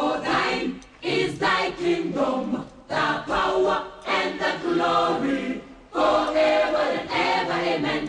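A choir singing in short phrases of about a second each, with brief gaps between them.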